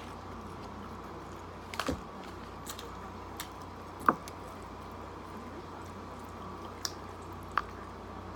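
Close-up eating sounds of boiled lobster and shrimp: wet chewing and squishing of the meat, with a few sharp clicks and smacks, the loudest about four seconds in.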